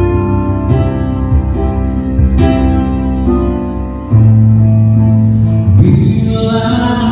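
Live band music led by keyboard chords, with no singing. About four seconds in it gets louder as a deep bass note comes in.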